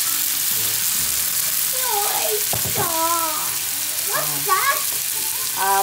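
Chopped garlic, onion and tomatoes sizzling steadily in hot oil in a stainless steel pan as they sauté, stirred with a wooden spoon.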